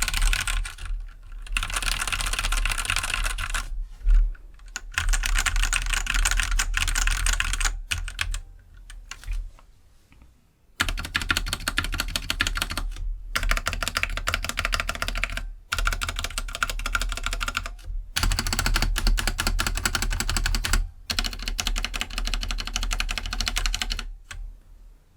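Typing on a Keydous NJ68 mechanical keyboard with stock linear Gateron Black switches: fast, continuous keystroke clicks. After a brief pause about ten seconds in, the long stabilized keys are pressed over and over in separate bursts of a few seconds each, to let the stock stabilizers be heard.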